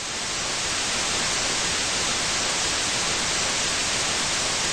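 TV static hiss (white noise), fading in over about the first second and then steady.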